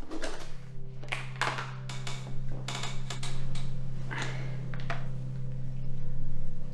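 A plastic food container being handled and opened: a scattered series of sharp clicks and taps over a low steady hum.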